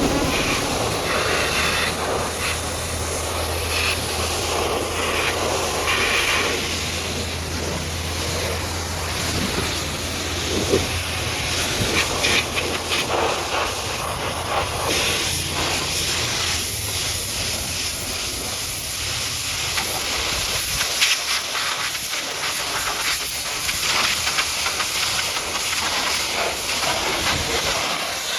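High-pressure water jet spraying mud off a truck, a steady hiss that shifts as the spray moves across surfaces. A low steady hum underneath stops about three quarters of the way through.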